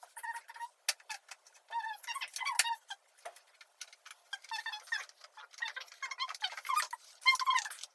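Hard plastic toy track pieces clicking and knocking as they are handled and fitted together, mixed with many short, wavering high squeaks or chirps.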